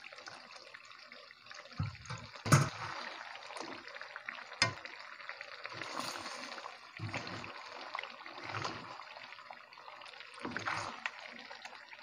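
Wooden spatula stirring thick duck kaldereta stew in a metal wok: wet squelching of the sauce with irregular knocks and scrapes of the spatula against the pan. The sharpest knock comes about two and a half seconds in.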